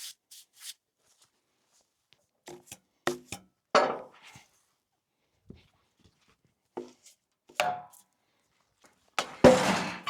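A squared log being handled and flipped on a bandsaw mill's bunks: a string of separate wooden knocks and bumps, with the loudest, heaviest thud near the end as the log settles flat.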